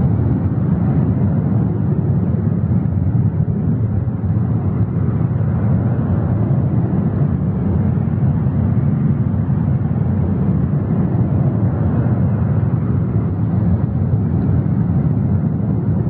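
A steady, deep rumbling noise without any distinct tone or beat.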